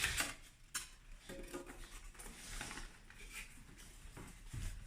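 Rustling and light knocks of packaging being handled as accessories are lifted out of a box, with a sharper click at the start and another a little under a second in.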